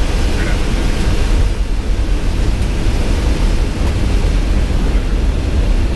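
Steady flight-deck noise inside a C-17 Globemaster III: the even, low-heavy sound of its four turbofan engines and the airflow, with no distinct events.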